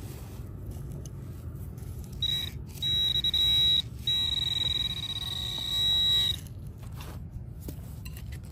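Handheld metal-detecting pinpointer giving a steady high-pitched buzz in three stretches, the last about two seconds long, signalling a metal target close in the soil.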